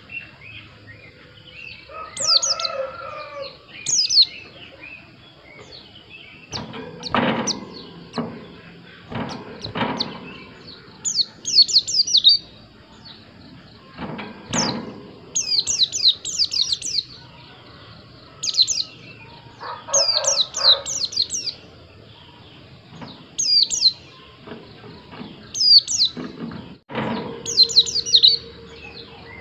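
White-eye (pleci) singing: repeated clusters of quick, high, falling chirps every second or two. Lower calls come twice, and a few sharp knocks sound in between.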